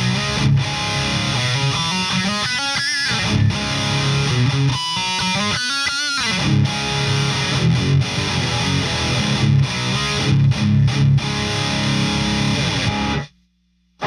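High-gain distorted electric guitar riffing from a Kramer guitar through a Victory Super Kraken amp, with a presence-and-resonance EQ pedal in the amp's effects loop. Low chugging riffs are broken by a few higher runs with bent notes, and the playing cuts off suddenly about a second before the end.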